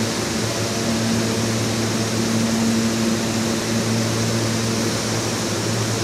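R160 subway train standing at the platform with its doors closed, its onboard equipment giving a steady electrical hum over a constant hiss.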